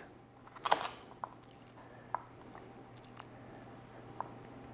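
Chef's knife slicing across a bunch of raw baby carrots on a plastic cutting board: a few faint, scattered cuts and knocks of the blade, the loudest near the start.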